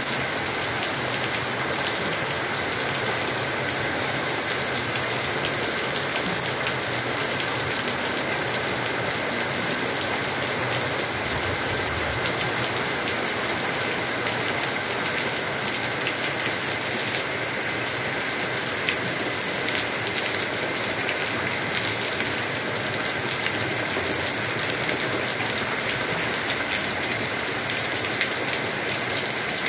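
Heavy rain falling steadily: a dense, even hiss with many close drop ticks as it hits leaves and ground.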